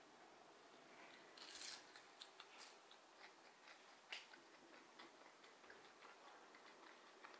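Near silence: faint room tone with a few soft clicks and a brief hiss about one and a half seconds in.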